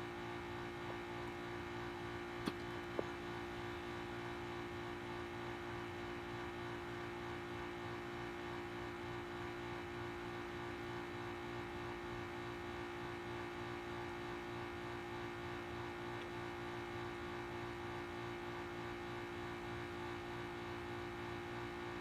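A steady mechanical hum holding one pitch throughout, with two faint clicks about two and a half seconds in.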